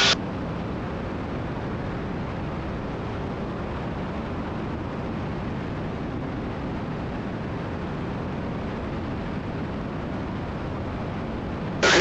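Steady, even drone of a Cessna T310R twin's engines and propellers heard from inside the cockpit.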